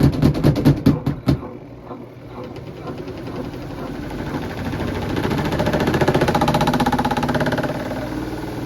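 Kuppet portable twin-tub washing machine running with a wet towel set to one side as an unbalanced load: a rapid, regular knocking, about three or four knocks a second, stops about a second in, then the tub's motor winds up, its hum rising in pitch and getting louder for several seconds before holding steady.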